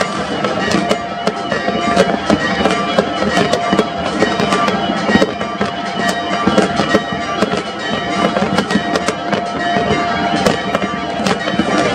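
Fireworks going off in quick succession, many bangs and crackles a second, over a steady droning tone.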